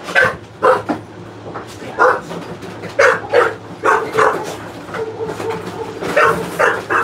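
A dog barking repeatedly: about ten short barks, some in quick pairs and runs.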